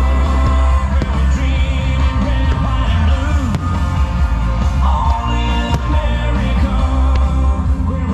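Music with a singing voice and heavy, steady bass.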